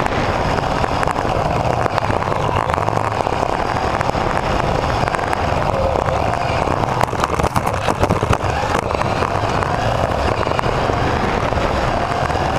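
Mini RC car's electric motor and gear drive heard from a camera mounted on the car, whining up and down in pitch with the throttle as it races over carpet. A run of sharp clicks and knocks comes about seven to eight and a half seconds in.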